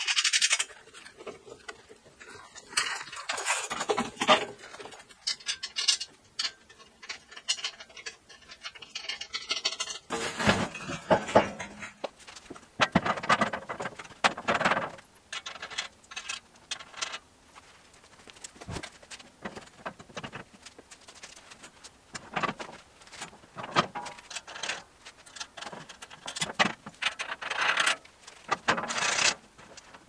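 Steel truss-beam parts being handled and fitted by hand: irregular metallic clinks, knocks and scrapes of steel rods and plates.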